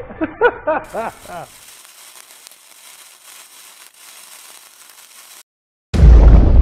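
Intro sound effect: a faint, steady fizzing crackle like a burning fuse for about four seconds, a brief dead silence, then a sudden loud, deep boom near the end. A voice is heard briefly at the very start.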